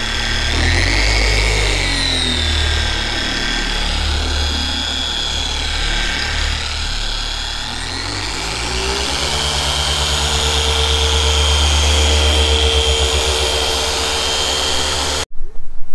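Electric car polisher running on a carbon fiber hood, buffing its clear coat with cutting compound. Its whine wavers up and down in pitch, rises about eight seconds in and holds steady, then stops abruptly near the end.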